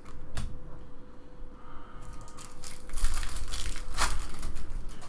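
Trading-card pack wrapper crinkling and crackling as it is handled. There is a single click near the start, then a longer run of crinkling with its sharpest crackle about four seconds in.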